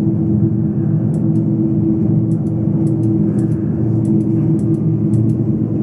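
Wind turbine installation running during a full-scale test: a loud, steady drone with a constant humming tone, with a few faint ticks on top.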